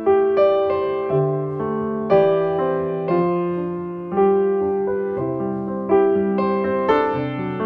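Background piano music: a slow, gentle melody, with a new note or chord struck about once a second and left to ring and fade.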